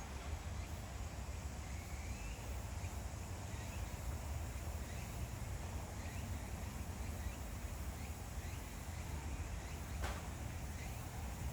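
Outdoor background: a steady low rumble with faint short chirps repeating every second or so, and a single click about ten seconds in.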